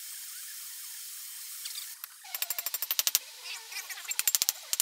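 Handheld gas torch flame hissing steadily, stopping about two seconds in. Then rapid light hammer blows, about ten a second in short runs, on the heated steel tang of a draw knife resting on an anvil, with a faint metallic ring.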